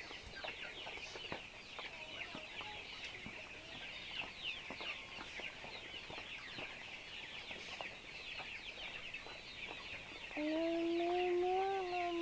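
A flock of Giriraja chickens chattering and clucking, a constant mass of short high chirps. About ten seconds in, a long, steady drawn-out call rises over the chatter and holds for a couple of seconds.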